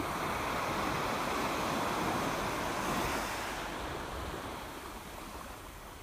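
Rushing seawater among rocks at the shoreline: a noisy wash that swells for about three seconds and then eases off.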